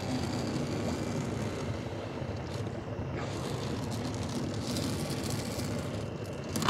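Small fishing boat's engine running steadily, with a brief knock about three seconds in and a sharper knock at the end.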